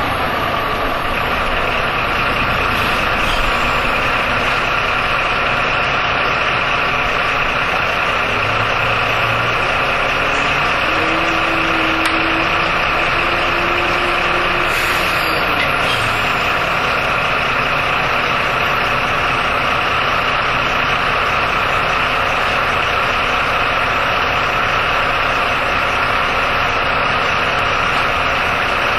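Jelcz M121M city bus engine idling steadily, heard from inside the bus, with a steady whine over it. A short low hum comes and goes about halfway through.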